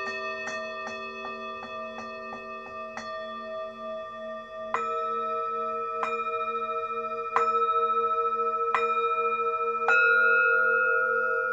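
Singing bowls being struck, their tones ringing on at several pitches with a slow wavering pulse. A run of quick light taps, about three a second, fills the first three seconds, then firmer single strikes come about every second and a half.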